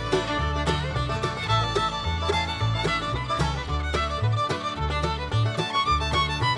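Background music in a bluegrass style, led by fiddle, over a steady bouncing bass line and quick picked notes.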